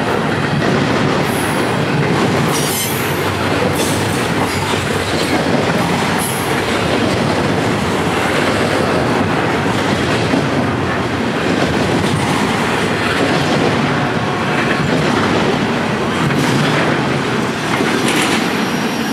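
CSX double-stack intermodal train's well cars rolling past close by: a steady, loud rumble and clatter of wheels on the rails, with brief high wheel squeals now and then.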